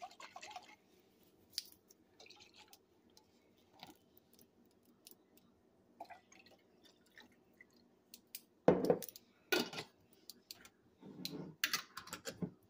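Chicken broth poured briefly from a glass jar into a pot of pasta and Alfredo sauce, followed by scattered faint clicks of kitchen handling. About nine seconds in come two loud knocks, the loudest sounds here, and near the end a short stretch of clattering.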